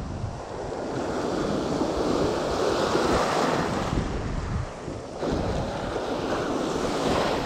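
Ocean surf breaking and washing up the beach, with wind rumbling on the microphone. The wash swells, eases briefly about five seconds in, then builds again.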